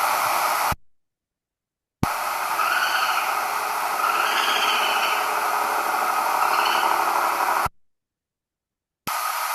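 Raccoon calls: three faint, wavering cries, each under a second, over a heavy steady hiss. The recording cuts abruptly to dead silence twice.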